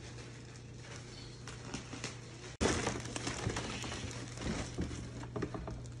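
Cardboard box and packaging being opened and handled: scattered rustles and light knocks of the flaps and inserts, louder after a brief break about two and a half seconds in, over a steady low hum.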